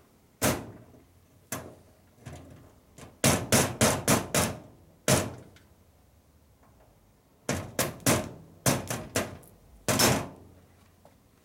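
Ball-peen hammer striking a small metal piece on a steel bench top to dull a sharp edge, likely a wheel-balancing weight being flattened before it is wrapped on a spoke. The blows are sharp and irregular: some single, and others in quick runs of four or five.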